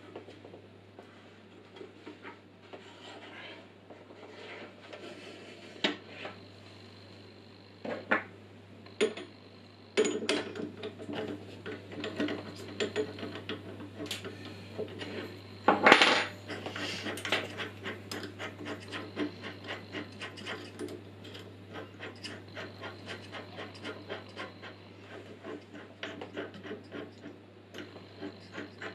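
Metallic clinks, knocks and clicks from hands working a bench drill press: the vise is shifted on the table and the drill chuck is turned by hand to change the bit. There are scattered knocks at first, then a run of quick small clicks from about a third of the way in, with one louder clank near the middle, over a steady low hum.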